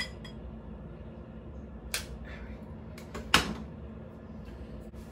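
Sharp clicks from a long-nosed butane utility lighter's trigger as it is held to a candle wick, about four clicks spread over three and a half seconds, the loudest near the end.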